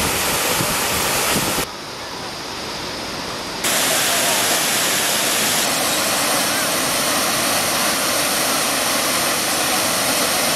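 Steady rush of water from the low check-dam cascade on the Kaveri river. It drops suddenly in level a little under two seconds in and comes back louder at about three and a half seconds, where the shots are cut together.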